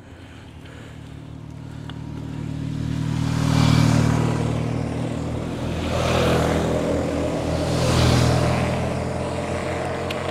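Three motorcycles pass one after another, their engines growing louder as they approach; the passes peak about four, six and eight seconds in.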